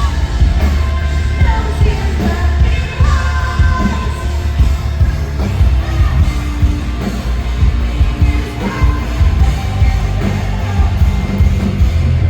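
A live rock band playing loud, with a singer over heavy bass and drums. The full band kicks in abruptly at the start.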